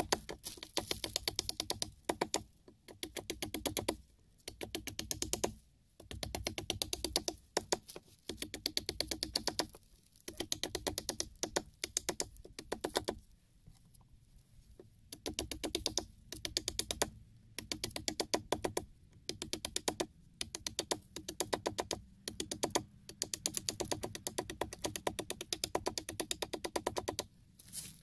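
Wood being worked with a hand tool: repeated bursts of rapid crackling clicks, each about a second long, with short pauses between.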